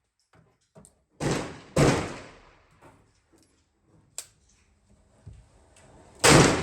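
Gunshots at a shooting range: two shots about half a second apart a little over a second in, a sharp click a few seconds later, and another shot near the end, each shot fading away after it.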